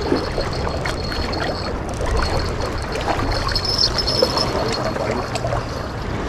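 Sea water washing and lapping against breakwater rocks, with scattered small clicks and a faint high whine that comes and goes.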